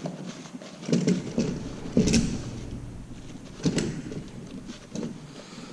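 Hand tools and small engine parts being handled, making about five separate short knocks and clicks, the loudest about two seconds in.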